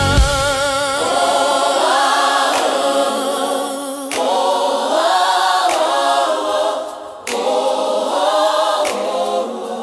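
Gospel choir singing long held, wavering phrases without drums or bass, in several phrases with short breaks between them. The beat cuts out just as it begins.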